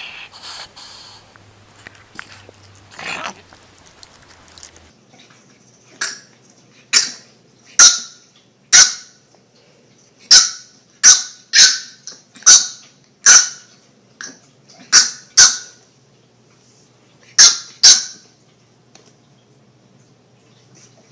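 French bulldog puppy barking in short, high-pitched yips, often two in quick succession, about a dozen of them starting some six seconds in.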